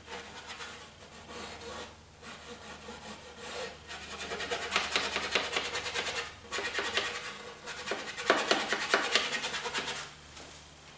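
Paintbrush scrubbing oil paint onto canvas in rapid back-and-forth strokes, a dry rubbing scratch that grows busier about four seconds in, pauses briefly twice, and stops near the end.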